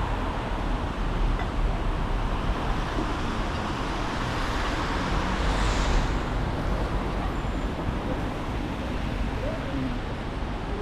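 Street traffic noise: a steady hum of passing cars, with one vehicle going by louder about five seconds in.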